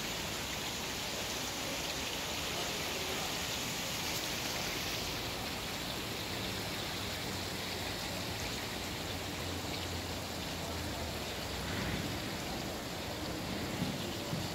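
Steady rain falling, an even hiss with no distinct drops or events.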